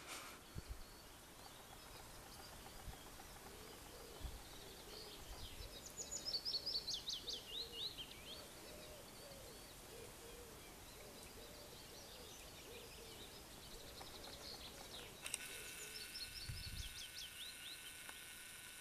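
Cetti's warbler singing: two short, loud bursts of song, one about six seconds in and one near the end, each a quick run of sharp, high notes.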